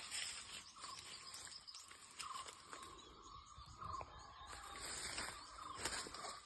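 Faint rural outdoor ambience: a steady high insect hiss, with short bird calls repeating every second or so and a few scattered clicks.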